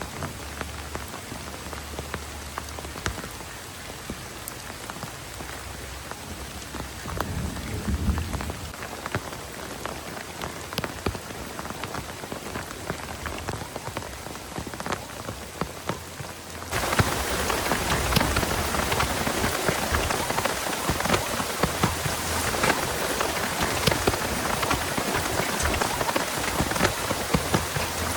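Heavy rain falling, with many individual drops striking close by. About a quarter of the way in there is a brief low rumble. A little past halfway the rain suddenly becomes louder and fuller and stays that way.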